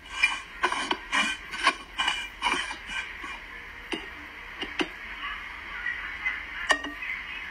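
Light taps and clinks on upturned stainless steel dog bowls on a tile floor, about two a second for the first three seconds, then a few scattered taps.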